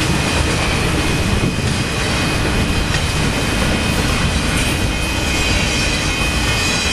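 Union Pacific auto rack freight cars rolling past: a steady, loud rumble of steel wheels on rail, with a thin, steady high whine over it.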